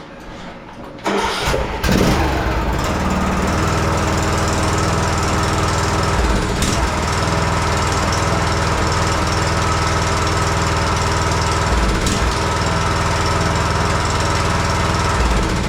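Riding mower's 20 hp Briggs & Stratton Intek engine cranked by the starter about a second in, catching and running steadily, then cutting out near the end. The engine dying fits the owner's finding that it dies when taken out of gear because the seat safety switch isn't being held down.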